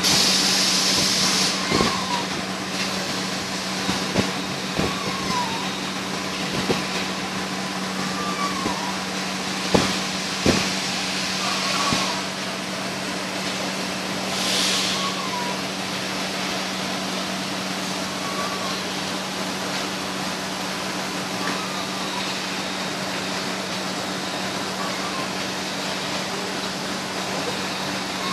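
PET-bottle shrink-wrap packaging machine running with a steady hum. Short bursts of hissing come and go, with scattered knocks and clatters from the mechanism and a faint short squeak repeating every few seconds.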